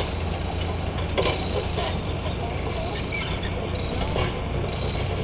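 Volvo tracked excavator's diesel engine running steadily while its demolition jaws bite into a concrete bridge tower, with scattered sharp cracks and crunches of breaking concrete, one about a second in and another about four seconds in.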